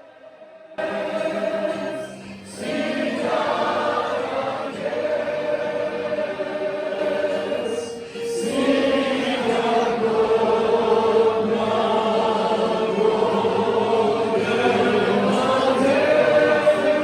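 A group of voices singing a hymn together, starting suddenly about a second in, with long held notes and two brief breaks between phrases.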